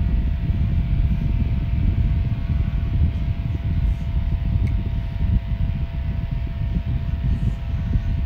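Small metal USB desk fan running steadily at its single high speed: a steady motor hum made of several fixed tones over a low rush of moving air.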